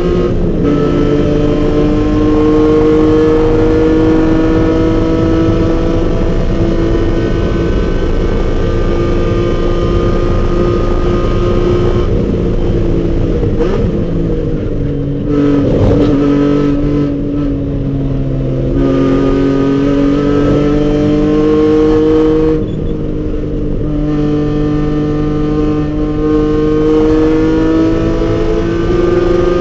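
BMW E46 M3's straight-six engine running hard at high revs on track, its pitch climbing under acceleration. Twice it lifts off with the pitch falling and the sound thinning for braking, with a sharp crack at about the middle, then pulls again.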